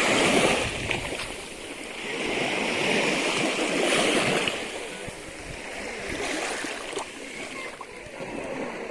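Ocean surf washing ashore, a steady rushing noise that swells and eases several times as waves come in.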